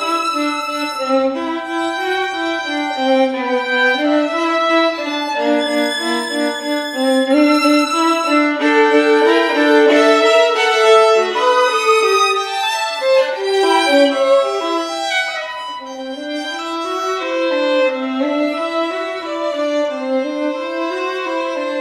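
Two violins playing a duet, a lower line rocking up and down in even steps beneath a higher melody.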